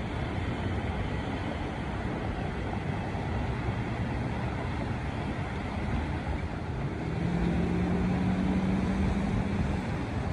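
Road traffic moving through a wide intersection: a steady wash of tyre and engine noise, with one vehicle's engine hum coming up louder from about seven seconds in.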